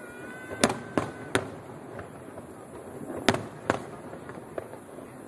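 Aerial fireworks shells bursting in a display: sharp bangs, three in quick succession about half a second in, then two more a little past the middle. A thin whistling tone sounds through the first second.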